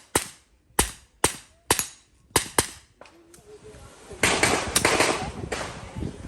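A string of about six gunshots fired in quick, uneven succession over roughly three seconds. From about four seconds in, a stretch of rough, fluctuating noise follows.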